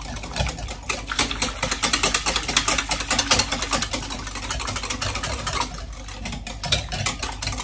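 Egg, sugar and milk batter being beaten in a bowl: a fast, continuous clatter of the beater against the bowl.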